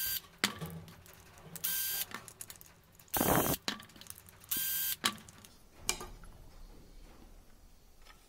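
Cordless drill/driver running in several short bursts of about half a second each with a steady motor whine, backing out the screws that hold a trim router's clear acrylic base plate. A few sharp clicks of screws and parts being handled come between the bursts and shortly after the last one.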